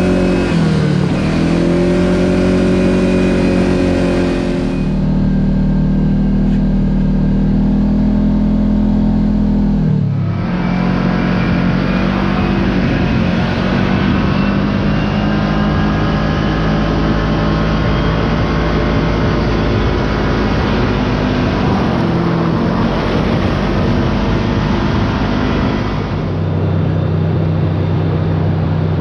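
Kawasaki Teryx KRX side-by-side engine running under way, its note dropping and climbing again with the throttle about a second in and again near the middle. The sound changes abruptly a few times, as clips are joined.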